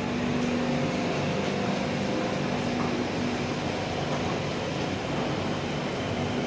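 Steady mechanical hum and general noise on a busy elevated BTS Skytrain station platform, with no single sound standing out.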